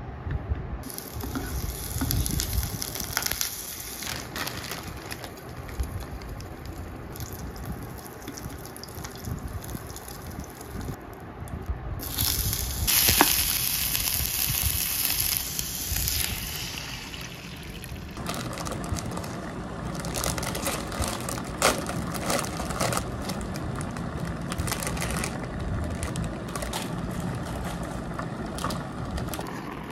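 Kitchen cooking sounds: a metal spoon stirring liquid in a small electric cooking pot, with clinks and scrapes against the bowl.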